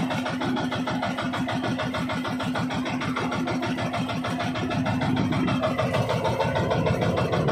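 Outrigger fishing boat's engine running steadily, a fast, even pulsing with a steady hum.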